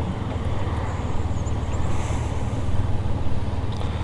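Motorcycle engine running at low speed with road and wind noise, a steady low hum from the rider's own bike.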